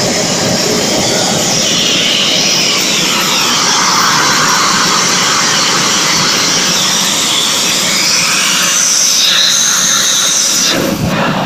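Model jet engine with a four-stage axial compressor and a single-stage turbine running: a loud, steady jet roar with a high whine that wavers in pitch. The level dips briefly near the end.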